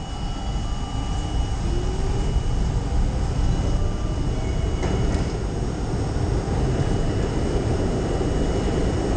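R32 subway train running through the tunnel: a steady, loud rumble of wheels and motors, with a faint whine rising in pitch about two seconds in.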